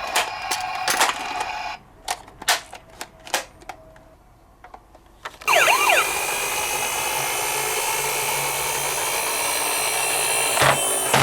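Toy minicar handled and running: scattered plastic clicks and knocks, then about halfway a loud, steady mechanical whirring noise sets in, with a few brief squeaks at its start.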